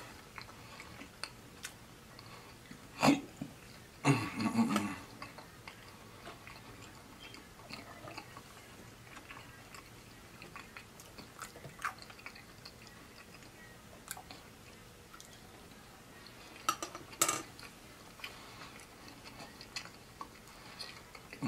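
Close-miked chewing of fried chicken, with wet mouth noises and small clicks throughout. A few louder bursts come about 3 and 4 seconds in and again near 17 seconds.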